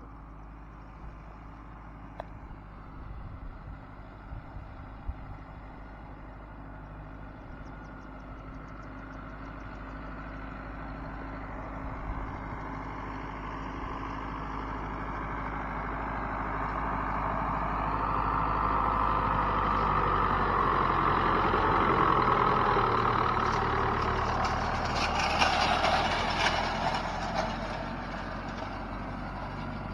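Farm tractor pulling a hay rake through a field, its engine running steadily and growing louder as it draws close. It is loudest about two-thirds of the way through, with a rattling clatter from the rake, then fades slightly as it moves away.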